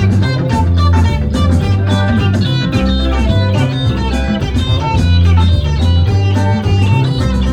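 Live electric guitar playing a fast run of picked notes over a steady bass line, the lead guitarist plucking the strings with his teeth.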